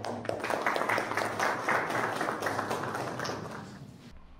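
A small group applauding, many hand claps overlapping, thinning out and fading near the end.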